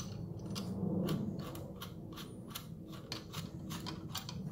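Hard plastic action-camera mount parts clicking and rubbing as they are worked apart by hand: a string of irregular small clicks.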